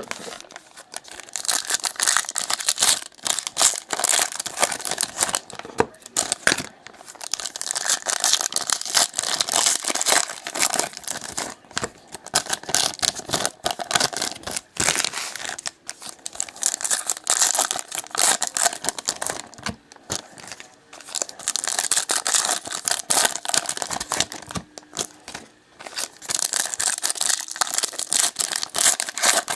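Plastic-and-foil wrappers of 2017 Select Racing card packs being torn open and crinkled by hand, in runs of crackling rips with short pauses between them.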